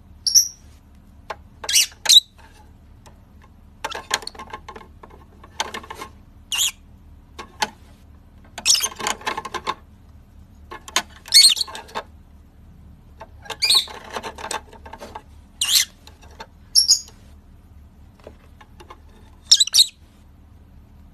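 Pet parrot giving short, sharp, high-pitched chirps and squeaks in scattered bursts, about a dozen over the stretch, some with a rougher scratchy edge.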